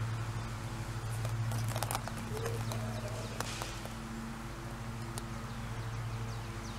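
Scattered clicks and knocks of plastic surprise eggs being handled, over a steady low hum.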